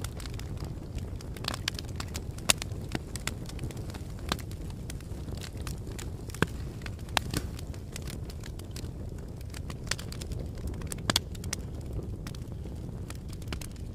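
Wood fire crackling: irregular sharp pops and snaps of burning wood, a few a second, over a steady low rush of the flames.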